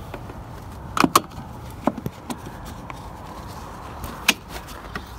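Seat belt on a Bobcat E20 mini excavator's operator seat being pulled across and buckled: a quick double click about a second in, a few lighter clicks and rattles, and one sharp click a little after four seconds.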